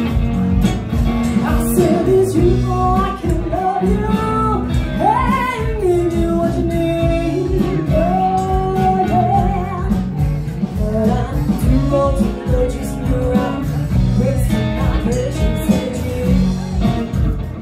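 Live band playing a song: a woman sings the lead melody over electric guitar, acoustic guitar and electric bass.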